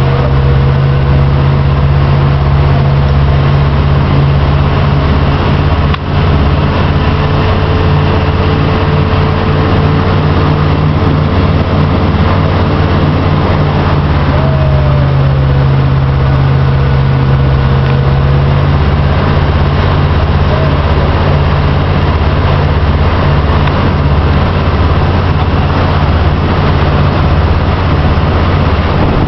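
Motorboat engine running steadily at constant speed, a loud, even low hum with a rush of noise over it.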